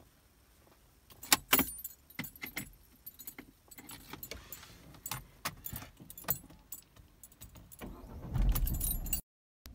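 Car keys jangling, with a run of sharp clicks and rattles. Near the end comes a low hum lasting about a second that cuts off suddenly.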